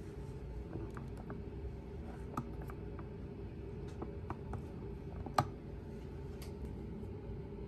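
Play-Doh ice cream maker toy being pressed, its plastic parts giving small scattered clicks as the dough is squeezed out, with one sharper click about five seconds in, over a steady low hum.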